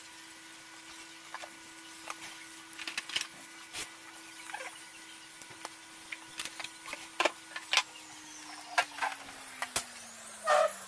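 A frying pan heating on the stove, giving scattered sharp ticks and crackles over a steady hum that slides down in pitch over the last few seconds. Near the end there is a louder brief clatter as sliced shallots drop into the pan.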